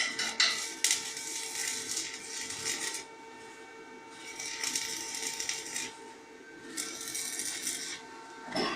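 Electric arc welding: a crackling, sizzling hiss in three runs of one to three seconds each, over a steady faint hum.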